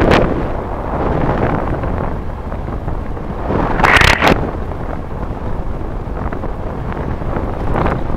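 Wind rushing over a helmet-mounted action camera's microphone while riding an e-bike, with two sharper gusts, one at the start and one about four seconds in.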